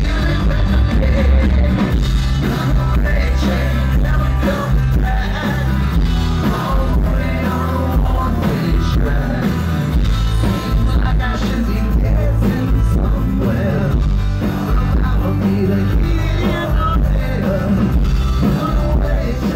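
Live rock band playing a song, with a lead singer and guitar over a heavy bass and drums, heard from the audience floor.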